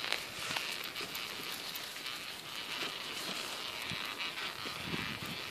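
Wheels of an Odder pram rolling along a paved path, a steady hiss with scattered small clicks and crunches.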